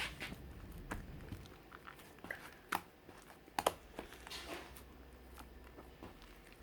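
Slime being mixed and worked by hand: scattered sticky clicks and pops, two sharper pops a little under a second apart in the middle, over a soft crackle.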